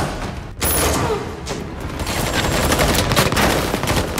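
Action-film gunfire: a dense, rapid volley of shots, like automatic weapons firing.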